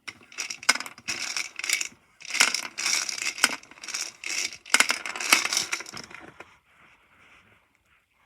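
Small hard objects shaken and clattering in a container, in a dozen or so rattling, crunching bursts, the mixing of the draw before the balls are picked. The shaking stops about six seconds in, leaving faint rustling.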